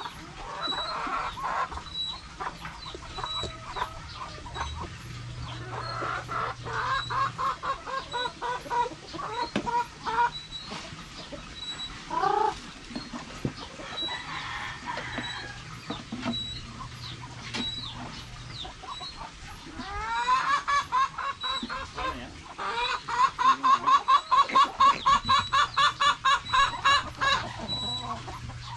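Poultry calling, in runs of short repeated clucks. The loudest run comes in the last third, a fast steady series of about four calls a second.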